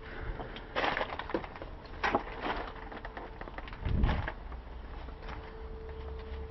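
Irregular clattering knocks and scrapes of parts or tools being handled, with a heavier thump about four seconds in.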